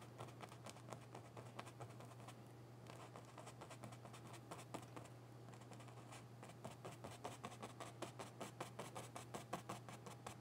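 Faint, quick scratching of a paintbrush working oil paint on canvas, the strokes coming faster and more regularly in the second half, over a low steady hum.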